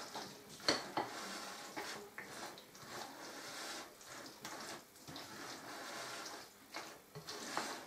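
Spoon stirring raw chicken pieces through a thick, wet marinade in a glass bowl: continuous wet squelching and sloshing, with a few sharp knocks of the spoon against the bowl.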